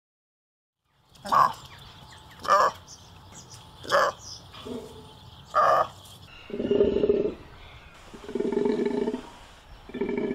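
Takin calling: four short, sharp calls about a second apart, then three longer, lower calls with a steady pitch, each lasting just under a second.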